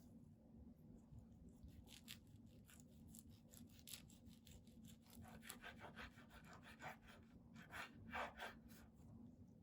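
Faint crackling and rasping of a sharp knife sawing through a gimbap roll wrapped in dried seaweed, a little louder near the end.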